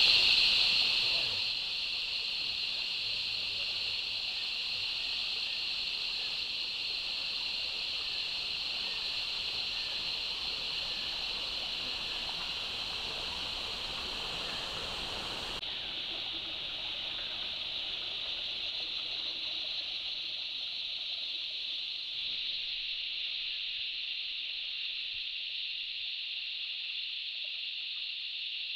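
Bush ambience: a steady high-pitched insect drone over the low rush of running creek water, a little louder in the first second or so.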